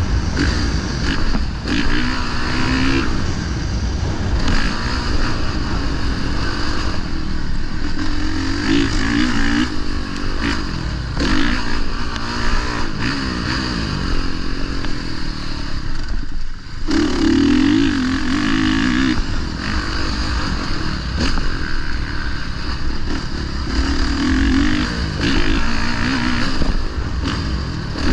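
Honda dirt bike engine being ridden hard, its revs rising and falling over and over as it accelerates and backs off, over a steady rushing noise.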